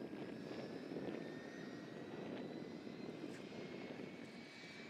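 Airbus AS350 Ecureuil helicopter's turbine engine starting up: a thin whine rising slowly and steadily in pitch as the engine spools up, over a steady rush, while the main rotor is still turning slowly.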